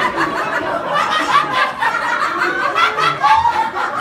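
Audience laughing: many people chuckling and laughing at once.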